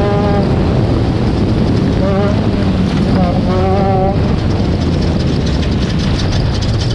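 Off-road race vehicle's engine running hard under steady heavy wind noise, with brief pitched tones rising over it a few times.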